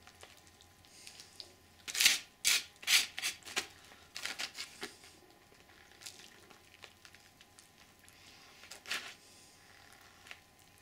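Paper sack of stucco plaster rustling and crinkling in several short bursts, with some scraping, as plaster powder is taken out by hand and sprinkled into a bowl of water.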